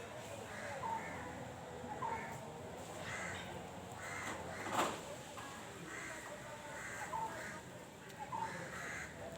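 Birds giving repeated harsh calls, roughly one a second, with a single sharp click about halfway through.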